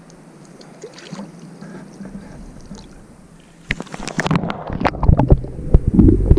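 Water splashing and sloshing around a camera held at the waterline as a large northern pike is lowered into the river and released. It starts faint, with small drips and ticks, then turns into loud splashing, knocks and rumbling from about four seconds in as the camera goes under the surface.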